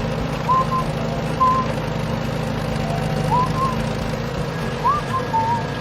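Steady low engine drone of a working construction vehicle, with short high chirps recurring about once a second over it.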